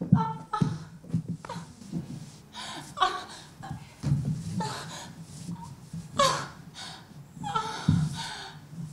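A woman gasping and groaning in short, irregular breaths, as if in agony, performed on stage.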